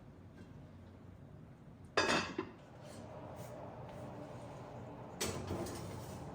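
Kitchenware clattering twice: one sharp clatter about two seconds in and another about five seconds in.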